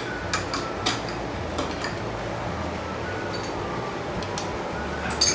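Scattered metallic clicks and clinks of hand tools and BMX bike parts being handled during assembly, with a louder clink near the end.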